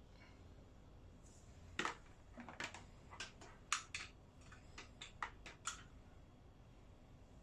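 A string of about a dozen light clicks and taps, irregular and uneven in loudness, from small plastic and metal parts and tools being handled on a workbench.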